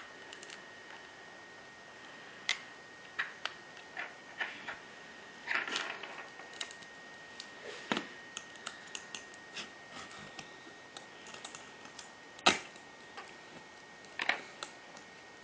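Irregular small clicks, taps and scrapes of a pry tool working the screen assembly of an iPhone 3GS loose from its frame, with one sharper click about twelve seconds in, over a faint steady high tone.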